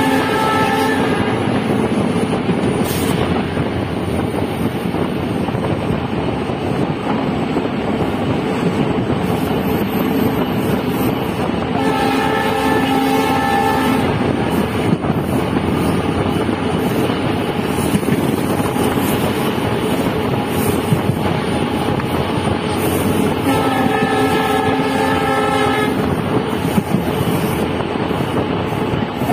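WDP4 diesel locomotive's multi-tone horn sounding three times: one blast trailing off about a second in, then two blasts of about two seconds each, roughly twelve seconds apart. Under it, the steady running noise of the train at speed and wind at the open window.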